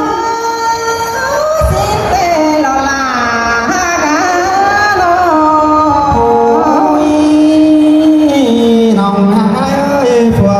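Tai folk singing (hát Thái) amplified through PA loudspeakers. A woman sings a wavering, ornamented melody over long, steady held accompaniment notes.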